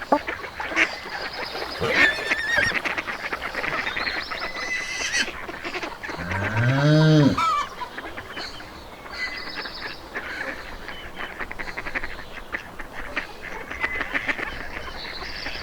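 Farmyard morning chorus of geese honking and other poultry calling. About six seconds in there is one low call from a larger farm animal, rising and then falling in pitch over about a second and a half, and it is the loudest sound here.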